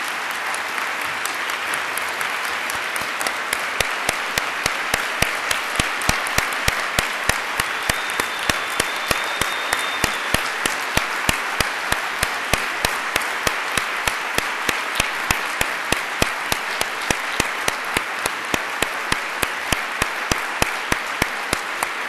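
A large audience applauding at length. From a few seconds in, sharp claps at a steady beat of about two a second stand out above the rest, and a thin high tone sounds for about two seconds near the middle.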